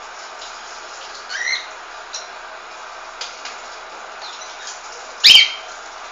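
Pet songbirds calling: a short rising chirp about a second and a half in, a few faint ticks, and one loud, sharp call near the end, over a steady hiss.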